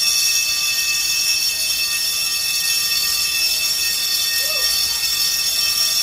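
Deluge fire-protection system discharging water through its open spray nozzles in a steady hiss, while a steady alarm tone sounds with it, as the system does when the deluge is tripped.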